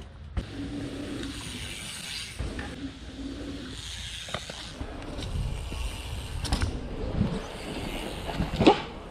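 Mountain bike rolling down a dirt trail: continuous rumble and hiss of tyres on dirt with wind on the microphone, a few sharp knocks along the way, and a short rising squeal near the end.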